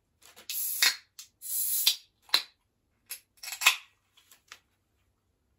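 Aluminium soda cans being opened: sharp cracks of the tabs and short hisses of escaping gas from the carbonated drink, several in a row.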